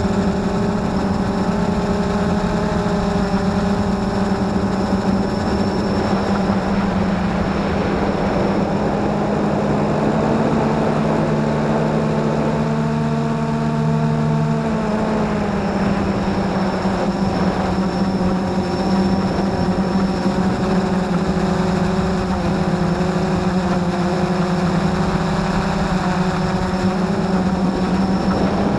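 Blade 350 QX2 quadcopter's four brushless motors and propellers buzzing steadily in flight, heard from the camera on board the drone. For a few seconds around the middle a second, lower tone runs alongside as the motors change speed, then the pitches merge again.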